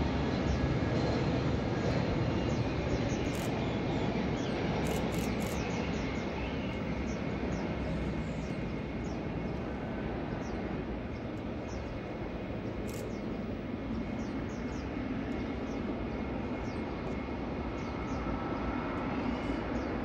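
Boeing 777-300ER's GE90 turbofan engines running at low thrust as the jet rolls slowly on the runway: a steady rumble with a faint high whine, easing a little midway and swelling again near the end.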